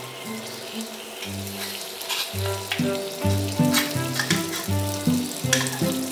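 A drop of water sizzling and crackling on a hot, dry nonstick frying pan as it evaporates, the crackles coming more often in the second half. Background music plays underneath.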